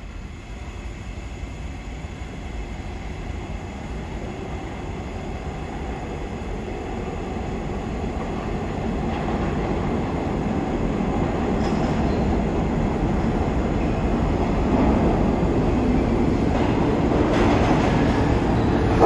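New York City subway train rumbling along the track toward the station platform, growing steadily louder as it approaches.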